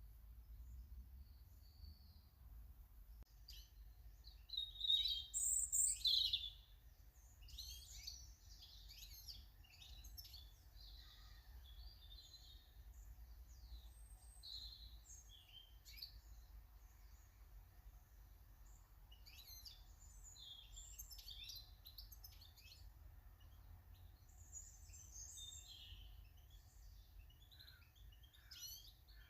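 Small garden birds chirping and calling in many short, high notes, with a louder run of calls about five seconds in, over a faint steady low hum.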